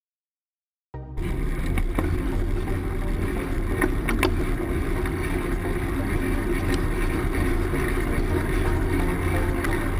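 Wind buffeting the microphone of a handlebar-mounted camera on a moving road bike, a steady low rumble mixed with tyre and road noise, starting about a second in. A few sharp clicks come around two and four seconds in.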